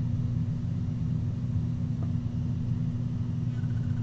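Steady low hum with no speech.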